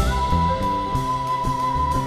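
Jazz quintet playing live: a quena holds one long high note over piano, double bass, violin and drum kit. A sharp drum hit lands right at the start.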